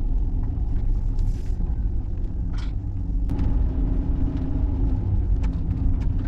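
A vehicle driving slowly, its engine and tyres making a steady low rumble, with a few faint clicks and rattles over it.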